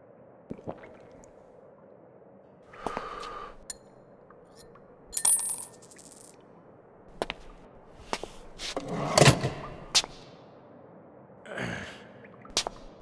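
Sparse foley effects of a metal briefcase being handled: separate clicks and knocks, a short bright metallic jingle about five seconds in, and a louder, fuller hit just after nine seconds.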